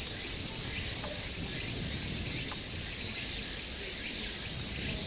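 Cicadas droning steadily in a high, even hiss, over a low background rumble.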